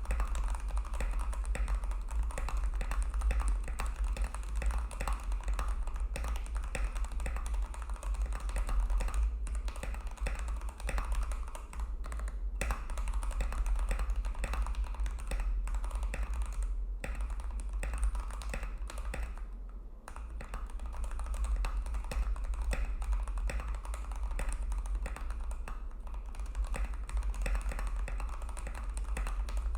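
Continuous fast typing on a Vortex KBt RE: mechanical keyboard with brown tactile switches, a dense patter of key clicks with a few short pauses. A steady low hum runs underneath.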